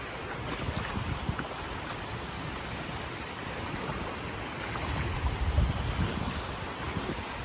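Outdoor wind buffeting the microphone over a steady wash of gentle sea surf, with a stronger gust of rumble about five seconds in.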